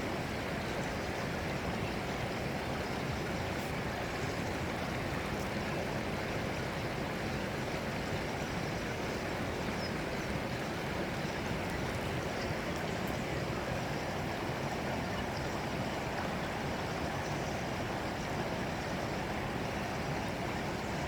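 Running water flowing steadily, an even rushing sound with no change in level.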